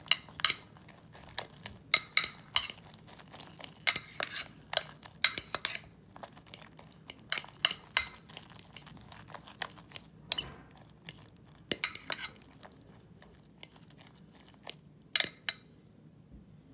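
Cutlery clinking and scraping against a dish in irregular sharp taps, frequent at first and growing sparse toward the end.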